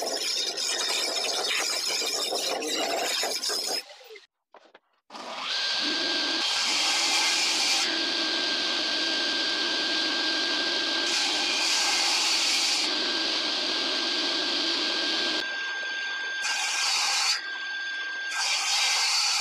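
A handheld power sander runs across the face of a hardwood end-grain cutting board. After a break about four seconds in, a table saw runs with a steady whine while the board is pushed through to square its edges, the sound shifting in level near the end.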